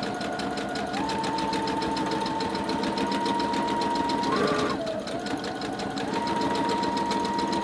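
Electric sewing machine running, stitching a seam through two layers of fabric. Rapid, even needle strokes sit under a motor whine that steps up in pitch about a second in, dips briefly around the middle, then picks up again.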